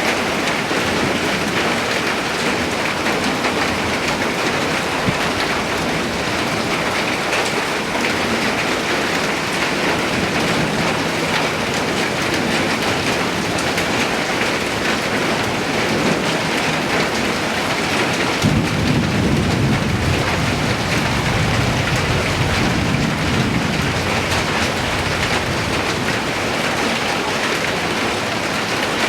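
Steady rain falling. About two-thirds of the way in, a low rumble starts suddenly and fades out over several seconds.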